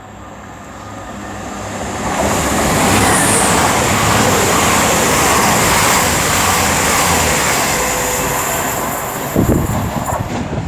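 Two coupled Class 220 Voyager diesel units passing through, the rush of wheels, air and underfloor engines building to loud about two seconds in and holding for several seconds. A sharp low thump comes near the end.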